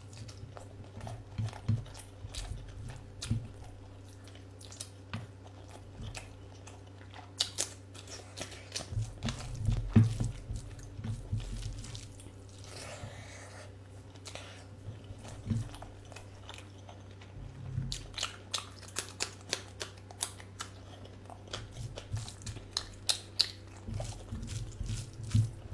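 Close-miked chewing and mouth smacks of a person eating rice and curry, with short crisp crunches and a faster run of regular chews near the end. A steady low hum sits underneath.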